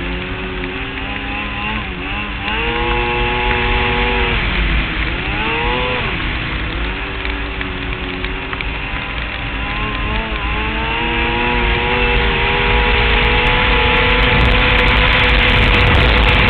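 Polaris XC800SP snowmobile's two-stroke twin running under way, its pitch dipping and rising with throttle changes a few times, then climbing steadily over the last few seconds as it speeds up, over a steady rushing noise.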